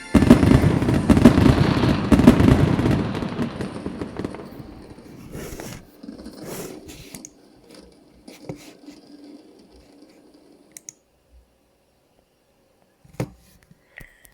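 New Year fireworks: a dense barrage of bangs and crackling at the start, dying away over about six seconds to scattered single pops, with one last bang near the end.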